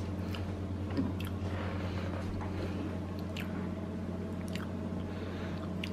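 Soft squishy spooning and light clicks of bowl and spoon as yogurt and baked oats are put into a bowl, over a steady low hum.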